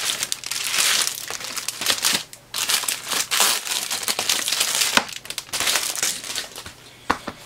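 Plastic packaging bag crinkling and rustling as it is torn open and a foam keyboard wrist rest is pulled out of it, with a brief pause a little over two seconds in and a couple of sharp clicks in the second half.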